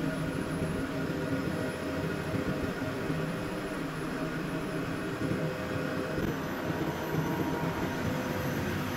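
Steady drone and hum of running engine-room machinery, with several constant tones over a low rumble.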